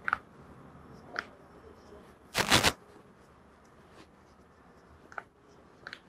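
Gloved hands working a patient's bare toes: a few faint clicks, and about two and a half seconds in one short, loud crackling rustle.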